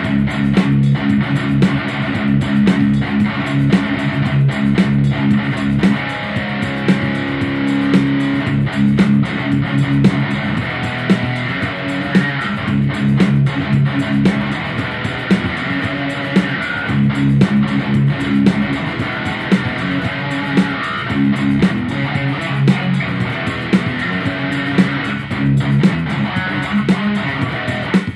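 Background music: a guitar-led instrumental with a steady beat.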